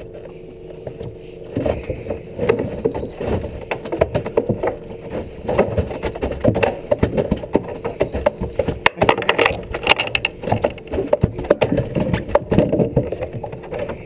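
Boat engine humming steadily under a stream of irregular knocks and scuffs from an angler's feet and rod on the deck right by the microphone, as he fights a fish on rod and reel.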